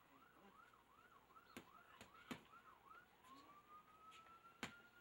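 Faint emergency-vehicle siren sounding a quick repeating up-and-down warble that changes to a long slow wail about three seconds in. Boxing-gloved punches land on a heavy punching bag as a few sharp thuds, the loudest sounds, about one and a half seconds in and again near the end.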